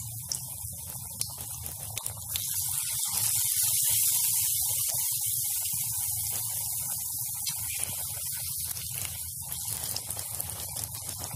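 Besan-battered stuffed green chillies deep-frying in hot oil in a kadai: a steady sizzle with small crackles that surges about two seconds in and then slowly eases.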